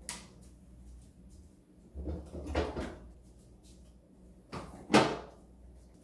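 Knocks and clatter of food containers being set down and moved on a countertop as a refrigerator is emptied. There is a cluster of clatter about two seconds in, and the loudest single knock comes near five seconds.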